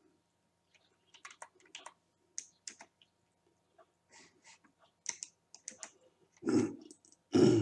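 Typing on a computer keyboard: irregular key clicks as numbers are entered, with two louder thumps near the end.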